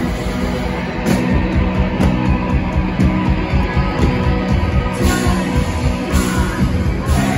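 Live rock band playing loudly, electric guitars over drums with a steady beat, the music stepping up in loudness about a second in.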